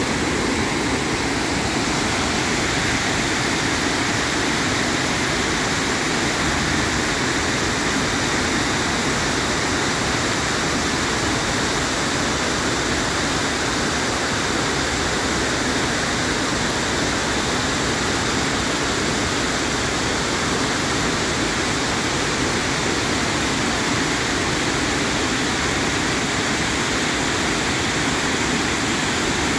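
Water pouring over a large river waterfall and its rapids, a steady, unbroken rush.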